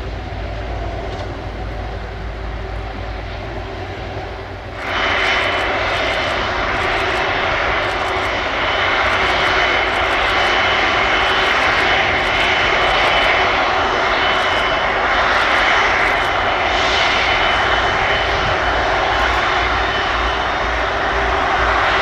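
Airbus A330-743L Beluga XL taxiing on its two Rolls-Royce Trent 700 turbofans: a steady jet rush and whine with a high fan tone. It grows abruptly louder about five seconds in and stays up.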